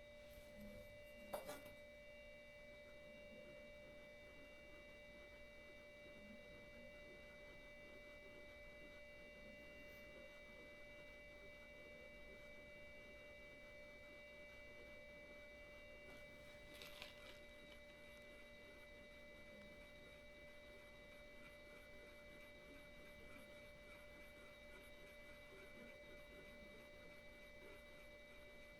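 Near silence: a faint, steady electronic whine of several high tones. There is a short click about a second in and another about halfway through.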